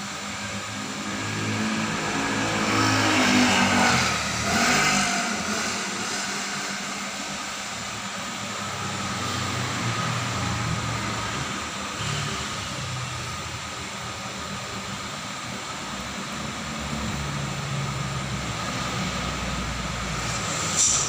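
Printing machine running: its motors hum in shifting low tones, with a louder stretch about three seconds in where the pitch sweeps up and down. Two sharp clicks come at the very end.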